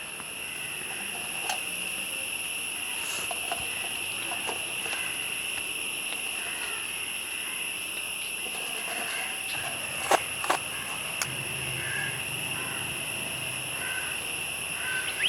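Insect chorus of crickets shrilling steadily at two high pitches, with a couple of sharp clicks about ten seconds in.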